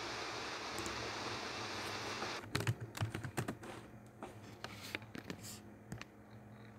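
A steady hiss that cuts off abruptly about two and a half seconds in, followed by a run of irregular light clicks and taps, like typing.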